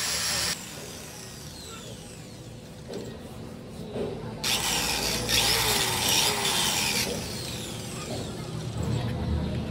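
Tire-repair tool work: rubbing and scraping on the tire with small knocks. A loud hiss cuts off half a second in, and another starts suddenly about four and a half seconds in and stops about two and a half seconds later.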